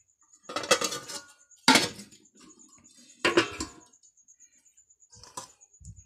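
Stainless steel plates and bowls clattering and clinking as they are handled: three loud clatters in the first four seconds and a fainter one near the end.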